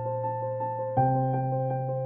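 Slow background piano music: held chords, with a new chord struck about halfway through.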